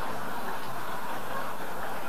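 A large audience laughing, a steady wash of many voices at once.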